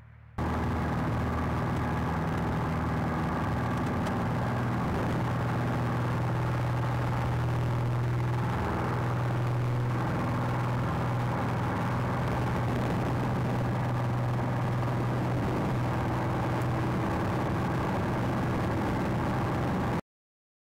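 Cessna 170B's six-cylinder Continental engine and propeller at full takeoff power, heard from inside the cabin as a loud, steady drone. It starts suddenly just after the beginning and cuts off near the end.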